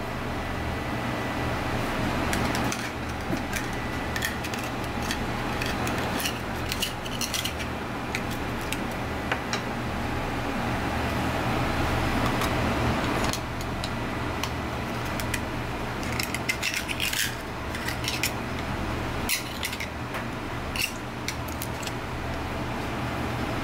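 A thin knife clicking and scraping against scallop shells as they are pried open and shucked, in irregular bursts of small sharp clicks. A steady low hum runs beneath.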